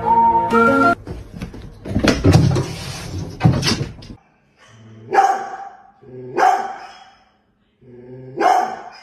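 A dog barking three times, about a second or two apart, each bark opening with a short low sound before the sharp bark. Before the barks, a few seconds of noisy knocking and rustling follow a brief end of background music.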